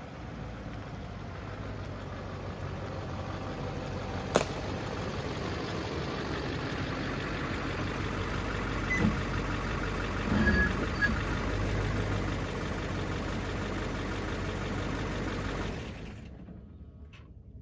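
A Duramax 6.6 L V8 turbodiesel in a GMC Sierra 2500HD pickup running at low speed as the truck reverses toward the microphone, growing louder as it comes closer. There is a single sharp click about four seconds in and a few light knocks partway through, and the engine sound drops away abruptly near the end.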